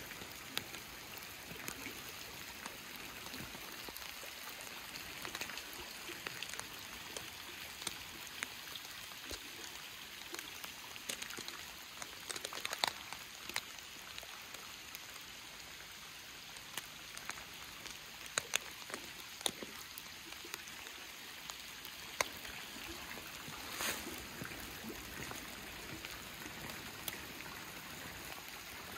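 Steady rain falling on pond water, a soft even hiss dotted with many sharp close taps of drops striking nearby.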